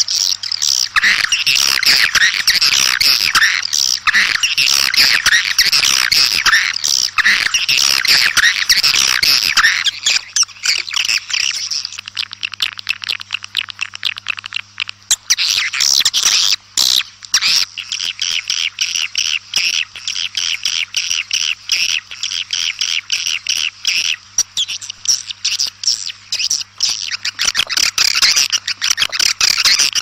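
Swiftlets' outdoor flock-calling chatter: a dense, fast stream of high twittering calls, the kind of recording played to lure swiftlets to a nesting house. The calls thin out for a few seconds about ten seconds in, then return as thick as before, over a faint steady low hum.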